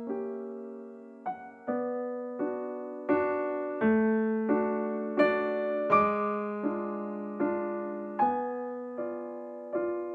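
Background music: slow, gentle solo piano, a chord struck about every three-quarters of a second and left to ring out.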